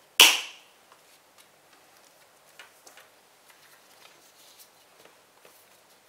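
Metal six-ring binder mechanism snapping shut with one sharp, loud click just after the start. Faint taps and rustling of sticker sheets and paper follow.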